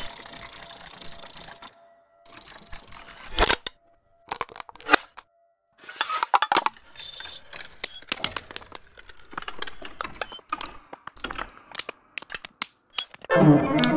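Electroacoustic sound collage of analogue recordings: irregular sharp clicks, crackles and rattling ticks, broken several times by short moments of dead silence, with a denser, louder clattering burst near the end.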